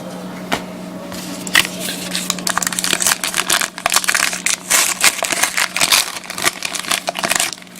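Plastic-foil trading-card pack wrapper being torn open and crinkled, a dense run of crackles starting about a second and a half in and stopping near the end.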